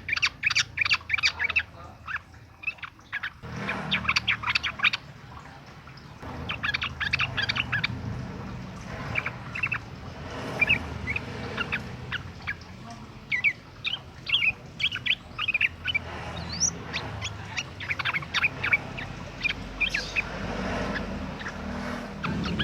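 Yellow-vented bulbul singing rapidly in repeated bursts of short, bubbly chirps and whistles, as used for a song lure to draw other bulbuls to respond.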